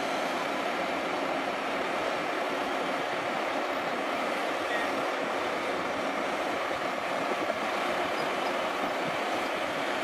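Ammann AP240 pneumatic-tyred roller's diesel engine running steadily as the roller drives across fresh asphalt.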